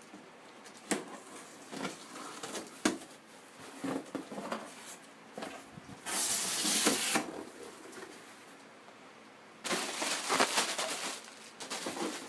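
A cardboard shipping box being opened by hand: a run of sharp knocks and clicks, then two longer rough rustling noises, about six and ten seconds in, as the packaging is pulled open.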